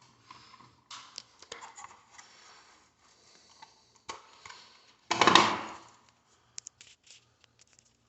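Electrical wires being folded and pushed back into a smoke detector's wiring box by hand: small clicks and rustles, with one louder scrape about five seconds in that fades over about a second, then a few sharp clicks.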